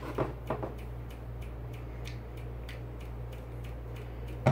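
Small clicks and light taps from a heavy diecast model airliner being handled, a few in the first second and a sharper click at the end, over a steady low hum.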